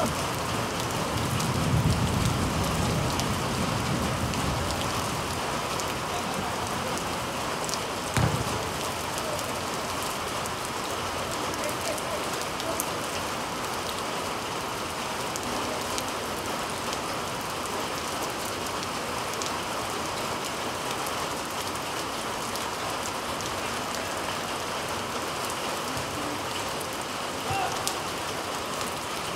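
Heavy rain falling steadily, an even hiss, with a low rumble in the first few seconds and one dull thump about eight seconds in.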